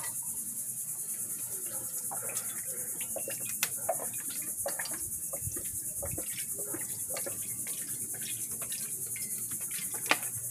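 Insects, crickets, chirping in a continuous shrill, evenly pulsing trill, with scattered light clicks and taps over it.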